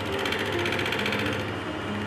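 Wood lathe running while a hand-held turning tool cuts into a spinning curly birch pipe blank, a steady motor hum under a rough, shifting cutting noise. Background music plays along with it.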